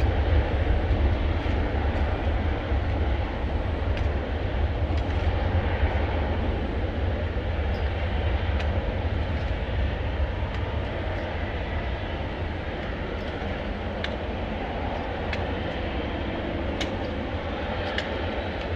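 Jet airliner engine noise: a steady deep rumble and hiss that slowly fades, with a few faint clicks.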